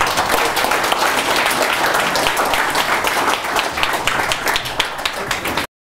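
Audience applauding: a dense, irregular patter of many hands clapping that cuts off suddenly near the end.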